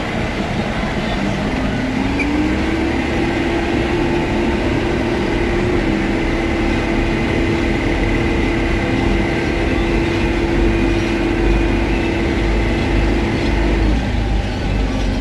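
Case 430 skid steer's diesel engine running under the load of a hydraulic pickup broom, with a faint steady high whine. The engine revs up about two seconds in, holds steady, and drops back near the end.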